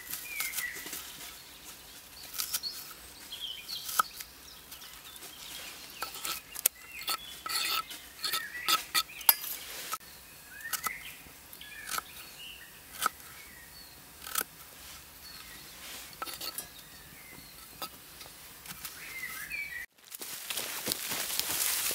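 Knife cutting vegetables on a wooden log board: irregular sharp clicks as the blade strikes the wood, with birds chirping now and then. Near the end the clicks stop abruptly and a steady rustling hiss takes over.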